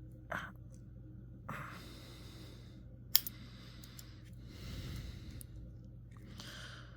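A few soft breathy exhales while something is worked loose by hand, with one sharp click about three seconds in.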